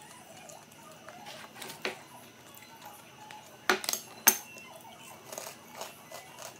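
Metal spoon clinking against a ceramic bowl as more food is scooped: a few sharp clinks, the loudest pair close together about four seconds in, with lighter taps before and after.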